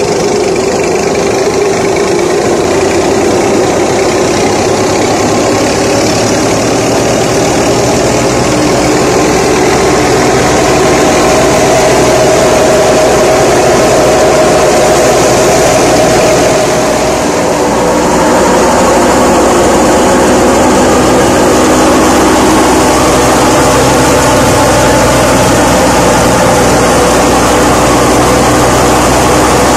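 Tractor engine running steadily under load as it drives a belt-powered wheat thresher, the thresher running with it in a loud, continuous machine noise.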